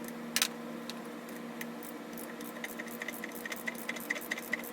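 Ratchet of a wrench clicking as a bolt is run in, a few separate clicks and then a quick even run of about four or five clicks a second from about two seconds in, over a faint steady hum.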